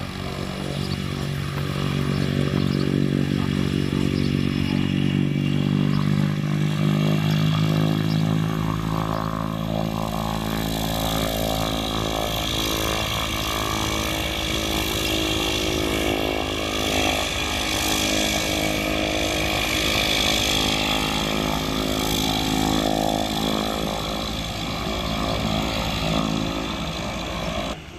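Cessna 208B Grand Caravan's single turboprop engine and propeller running as the aircraft taxis: a steady, loud drone with a high turbine whine above it, swelling over the first couple of seconds.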